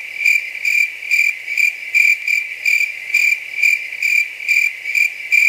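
Cricket chirping: one high-pitched chirp repeating evenly about three times a second.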